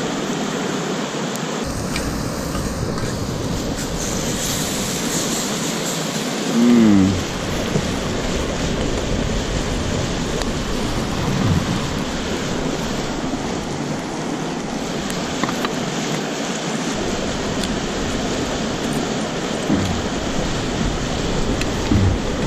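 Steak cooking over an open campfire: a steady hiss with a few faint pops. A brief, louder pitched sound falls in pitch about seven seconds in.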